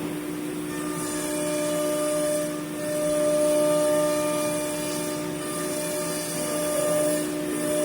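A CNC woodworking machine running with a steady whine, and a high hiss that fades out and comes back a few times.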